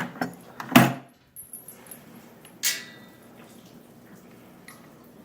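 Two sharp metallic clanks, a loud one about a second in and a lighter, ringing one near three seconds.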